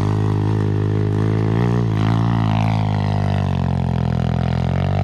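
Dirt bike engine running at a steady, even pitch, with a slight waver in pitch about two seconds in.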